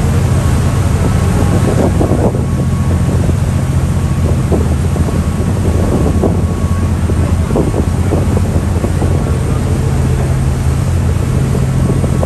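Steady low drone of a ferry's engines, with wind buffeting the microphone.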